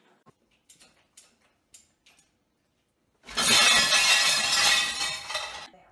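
Dishes clattering loudly in an open dishwasher rack, a dense rattle of crockery and glass that starts about three seconds in and lasts about two and a half seconds.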